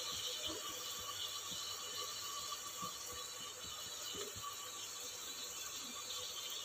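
Tomatoes and onions frying faintly in oil in a pressure cooker: a soft, even sizzle with a few small clicks.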